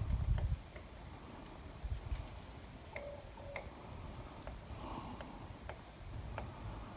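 Quiet snowy woods: a short wind rumble on the microphone at the very start, then faint scattered ticks and two brief tones about three seconds in.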